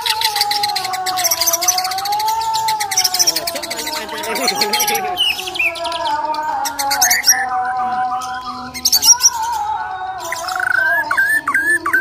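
White-rumped shama (Bornean murai batu) singing its aggressive fighting song: a long, varied run of clear whistles mixed with fast, high rattling chatter. Near the end it turns to a string of quick rising notes, about three a second.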